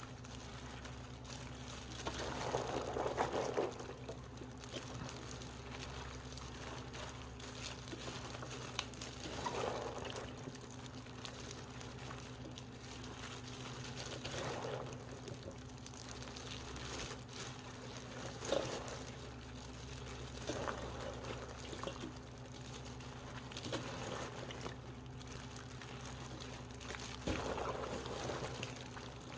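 Wet splashing and rustling of young radish greens being worked by hand in water or seasoning. It comes in irregular bursts every few seconds, the loudest a couple of seconds in, over a steady low hum.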